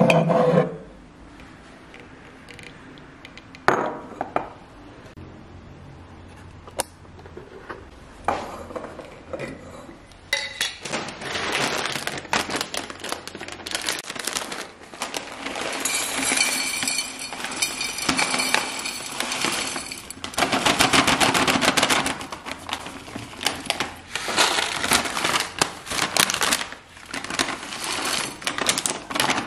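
Dry cereal clusters poured from a packet into a glass jar, a dense rattling and clinking of pieces against the glass that starts about ten seconds in and keeps going. Before it come a few sharp knocks.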